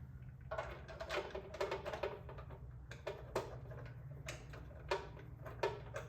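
Scattered light clicks and taps of handling noise over a low background hum, a cluster in the first couple of seconds and then single ones every second or so.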